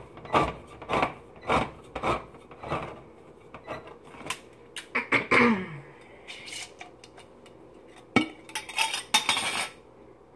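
Handheld crank can opener cutting around the rim of a steel can of fruit cocktail, clicking about twice a second for the first few seconds. Then comes scraping and clinking of metal, with a sharp knock about eight seconds in and a short clatter after it.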